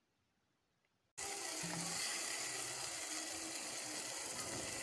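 Diced chicken frying in oil and spiced sauce, sizzling in a pan: a steady hiss that cuts in abruptly about a second in.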